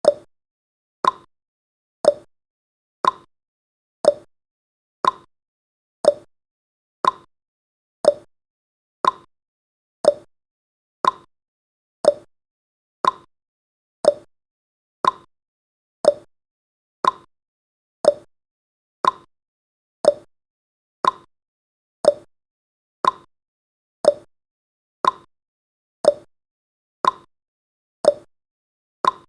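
Clock-style tick-tock sound effect of a countdown timer: one short tick each second, alternating higher and lower in pitch.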